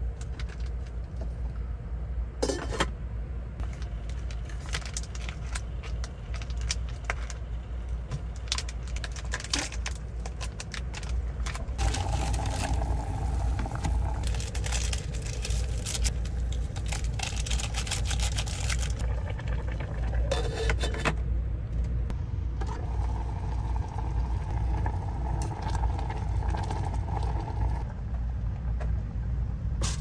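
Crinkling of instant ramen and seasoning packets being torn and emptied into an electric cooking pot, with small clicks from handling the pot, over a steady low rumble.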